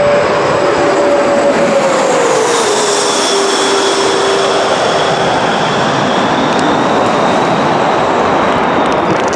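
A loud passing vehicle: a steady roar with a whining tone that drops in pitch about two to three seconds in and then fades.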